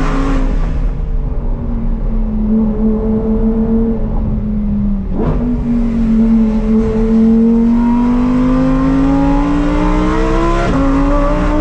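Lamborghini Huracán STO's naturally aspirated 5.2-litre V10 running under way. It holds steady revs, makes a sharp gear change about five seconds in, then climbs steadily in pitch as it accelerates and drops with an upshift near the end.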